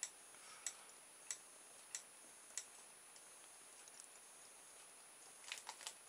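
Faint, regular ticking from a home-made rocking flower's reed-switch and electromagnet-coil drive as the flower swings: five clicks about two-thirds of a second apart, then fainter ones, and a quick cluster of clicks near the end.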